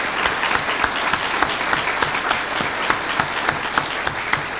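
A large audience applauding steadily, with many overlapping hand claps.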